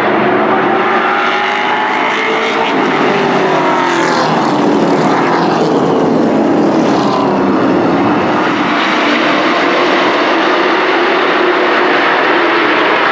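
A pack of race trucks running on a paved oval, several engines at once, their notes rising and falling as they go round. A few trucks pass close by about four to seven seconds in.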